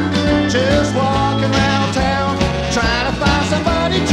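Recorded country-folk band music playing: a passage with no sung words, melodic lines over a steady bass and beat.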